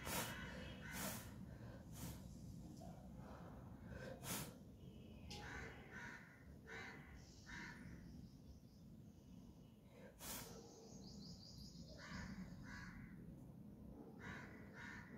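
Crows cawing repeatedly in short calls, faint, with a few sharp clicks heard close up between them.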